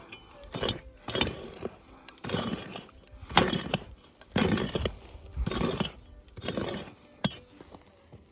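A pick striking hard, stony ground about once a second, eight blows in all, each a sharp chink of metal on rock followed by a short scrape of dirt and stones as a detector target is dug out.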